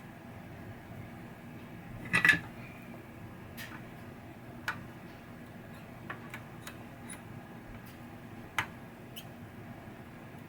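Scattered light clicks and taps of small metal hand tools against a circuit board during desoldering work, the loudest a sharp double clack about two seconds in, over a faint steady hum.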